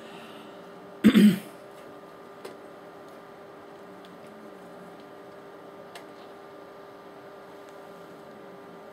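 A man clears his throat once, about a second in, a short loud rasp. After it there is only a faint steady electrical hum with a couple of tiny clicks.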